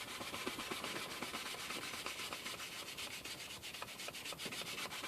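Paintbrush scrubbing Prussian blue paint onto a stretched canvas in quick, short, repeated strokes: a faint dry scratching.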